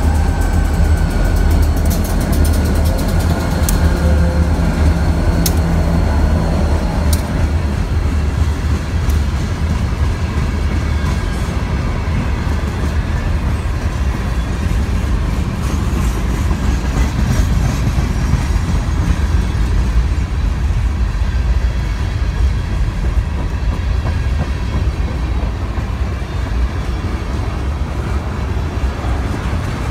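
Freight train passing close by. In the first several seconds the trailing diesel locomotives' engines hum under a few sharp wheel clicks. After that, the steady rumble and rattle of boxcars and tank cars rolling past on the rails.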